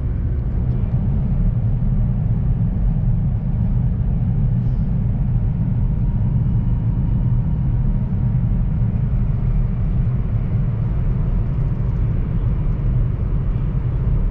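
Steady low rumble of a CRH high-speed train running at speed, heard inside the passenger cabin.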